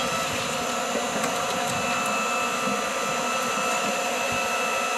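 Hydraulic log splitter's motor and pump running steadily, a constant whine with no splitting cracks.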